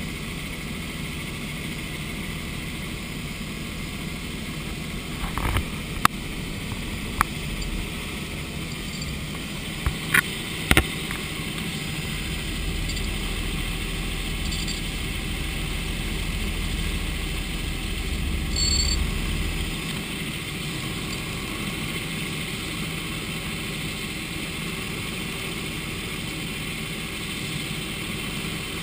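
Helicopter engine and rotor drone heard from inside the cabin, steady throughout. A few sharp clicks come between about five and eleven seconds in, and a deeper low rumble joins for several seconds in the middle.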